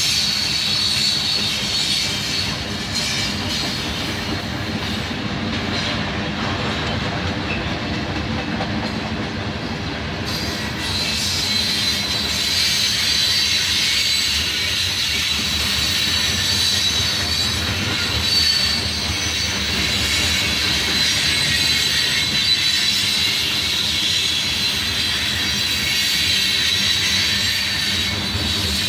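Freight train of covered hopper cars rolling past, the steady noise of steel wheels on the rails with a high, steady wheel squeal that grows stronger about a third of the way in.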